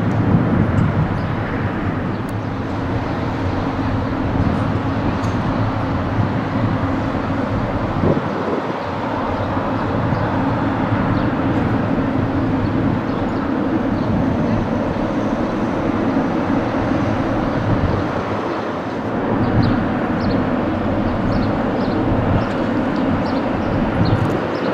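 Steady rumble of jet engines at taxi idle as a Boeing 777 airliner taxis, with a faint steady hum running through it.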